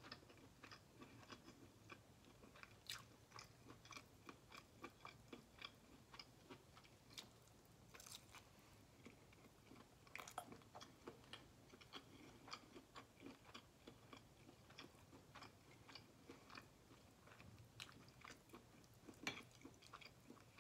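Faint close-miked mouth sounds of someone chewing a bite of chicken mango habanero sausage: small wet clicks and smacks, a few per second, with an occasional louder one.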